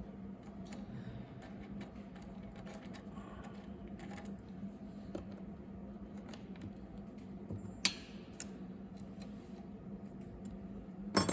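Small metallic clicks and taps of hand tools and parts being handled on a metal machine during adjustment, with a sharp click about eight seconds in and a louder clatter near the end, over a steady low hum.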